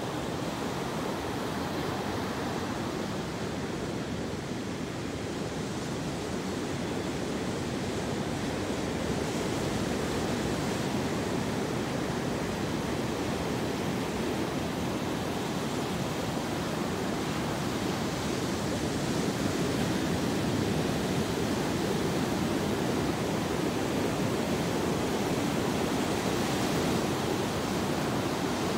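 Ocean surf breaking and washing over a sandy, rocky shore: a steady, continuous rush of waves.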